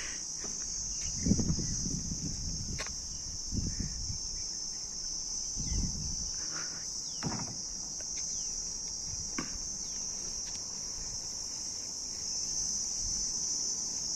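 Insects droning steadily at a high pitch, with a few short bird chirps and scattered low thumps.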